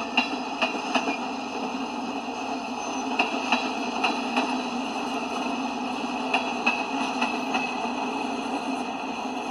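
Freight cars of a CSX manifest train rolling past: a steady rumble of steel wheels on rail, with sharp clicks, mostly in pairs, as the wheelsets cross rail joints.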